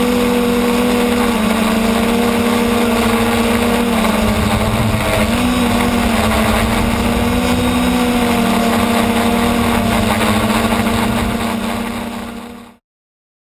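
Motor and propeller of a radio-controlled model aircraft, heard through its on-board camera: a loud, steady drone whose pitch wavers slightly, over wind rush. It fades out near the end.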